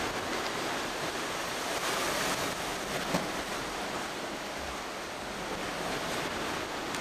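Steady roar of Hurricane Harvey's winds, heard from inside a storm-damaged building, with a single short knock about three seconds in.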